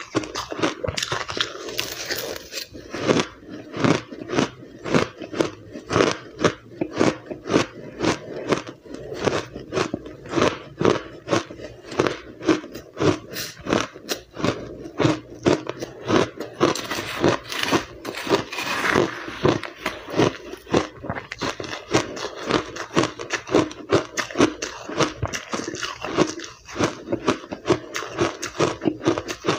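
Close-up chewing of powdery blender-crushed ice: a quick, even run of crisp crunches, about two a second.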